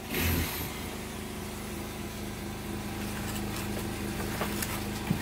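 A motor runs with a steady hum throughout. Over it come a scraping burst near the start and a few short scrapes later, as plaster is worked onto a plastic corner bead at a brick wall.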